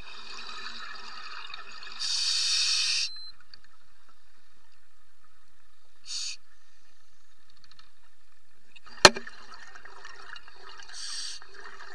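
Scuba regulator exhaust bubbles heard underwater: a burst of bubbling hiss about two seconds in lasting about a second, and shorter bursts about six and eleven seconds in, over a steady underwater hiss. A single sharp click about nine seconds in.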